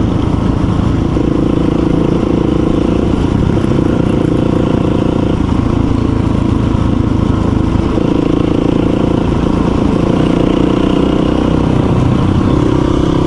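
Dual-sport motorcycle engine running under way at steady road speed; its note drops about five seconds in and rises again a few seconds later.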